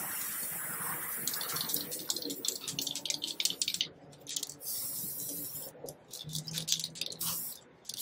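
Aerosol spray paint can hissing in a run of spray bursts, broken by brief pauses about halfway through and near the end.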